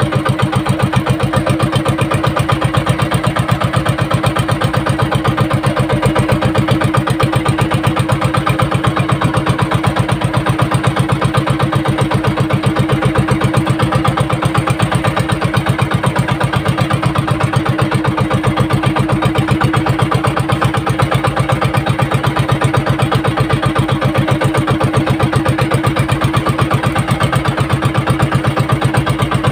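Outrigger boat's engine running steadily with a fast, even putter.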